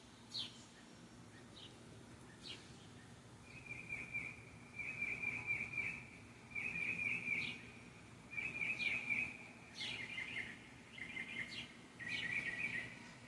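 Small birds chirping in a tree: a few sharp single chirps at first, then, a few seconds in, a series of rapid trilled phrases about a second long, repeating with short gaps, and several birds overlapping near the end.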